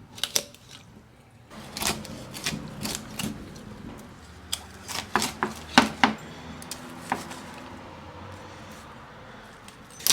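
Cutting through a raw turkey's backbone for spatchcocking: irregular crunching snaps of bone and cartilage, coming thickest in the first seven seconds and easing off near the end.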